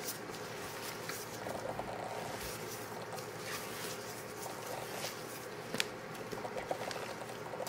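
Silicone spatula folding and scraping macaron batter in a glass mixing bowl: soft wet squishing and scraping, with a few light taps. This is macaronage, folding the dry ingredients into the meringue.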